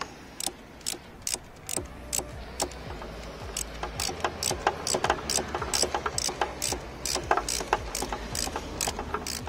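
Ratchet wrench clicking as a bolt is tightened, at first about two clicks a second, then faster, about four a second, from around four seconds in.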